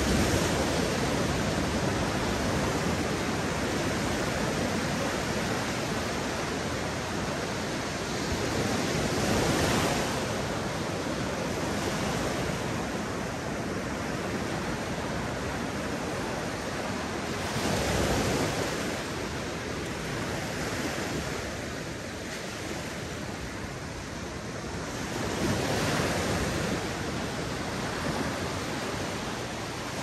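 Mediterranean sea waves breaking on a beach: a steady wash of surf that swells four times as waves break, about every eight to nine seconds.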